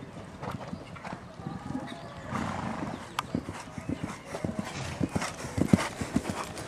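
Hoofbeats of a horse cantering on a sand arena, a run of dull thuds that grow louder as it comes close, loudest about five to six seconds in.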